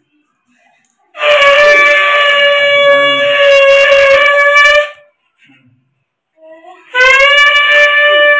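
Conch shell (shankha) blown in two long, steady blasts: the first lasts nearly four seconds, and a second begins near the end and carries on.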